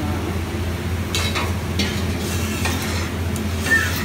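Metal spatula scraping across a large flat iron griddle (tawa) in several short strokes, over a steady low hum and faint sizzling.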